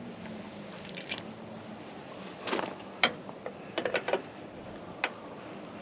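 Scattered light clicks and knocks of tools and metal parts being handled inside a pickup's door panel during a door lock actuator replacement, a cluster of quick clicks about four seconds in, over a faint steady hum.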